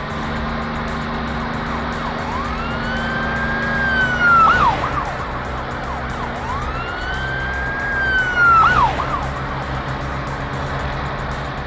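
Cartoon police car siren wailing twice, each wail rising, holding high, then falling away quickly, over a steady low vehicle hum.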